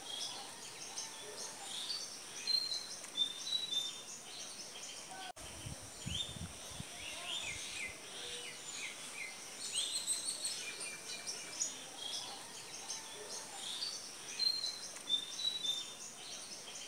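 Many small birds chirping and twittering in short, high calls over a faint steady high hiss. A brief dropout comes about five seconds in, followed by a few low bumps on the microphone.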